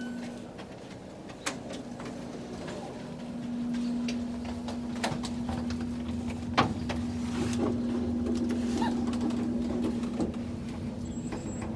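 A baby stroller being pushed into an elevator, its wheels rolling and knocking over the door sill, with scattered clicks and a steady low hum.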